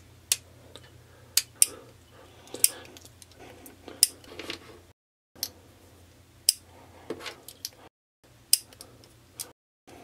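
Heritage Rough Rider .22 single-action revolver being loaded and unloaded by hand through the loading gate: sharp metallic clicks, about one a second, as the cylinder is turned chamber by chamber and cartridges are handled.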